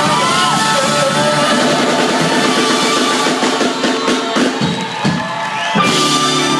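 Live blues-rock band playing the closing bars of a song: electric guitars with gliding lead lines, drum kit and horn section. Drum hits come about four to five seconds in, then a loud full-band hit near the end as the crowd begins to cheer.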